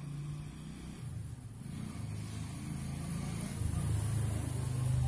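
A motor vehicle's engine running with a low, steady hum that grows louder toward the end.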